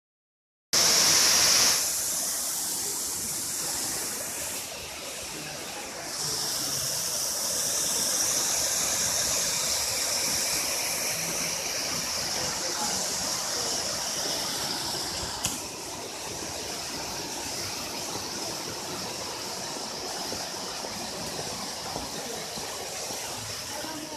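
Waterfall's water rushing: a steady hiss of falling water that shifts in level a few times, with one brief click about fifteen seconds in.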